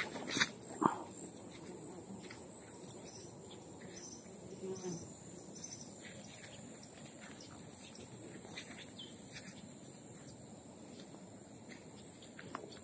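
Outdoor ambience of insects trilling in one steady high note, with a few short bird chirps. Footsteps rustle through grass near the start.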